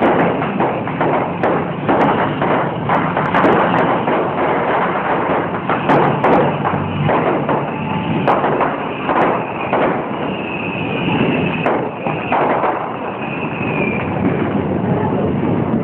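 Fireworks display: a rapid run of bangs and crackles from bursting shells, thinning out after about ten seconds, when a few high wavering whistles sound.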